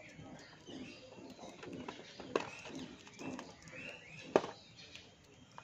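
Budgerigars chattering with soft warbles and short chirps, over a few sharp clicks; the loudest click comes about four seconds in.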